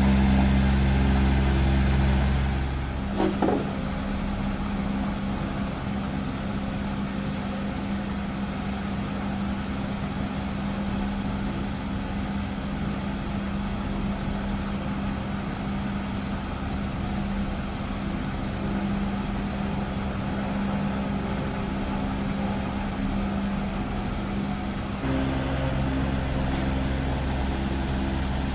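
A steady machine hum with evenly spaced low tones. Its deepest part drops away about three seconds in and comes back near the end.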